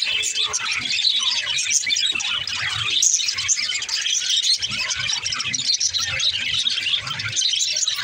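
A flock of budgerigars chattering and warbling, a dense stream of short overlapping chirps.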